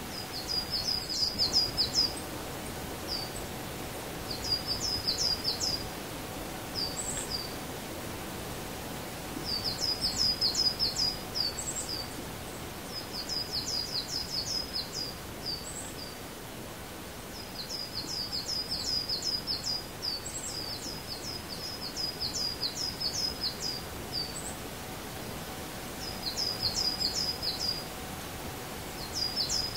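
A songbird singing short, high phrases of rapid notes, repeated many times with short pauses between them, over a steady outdoor background hiss.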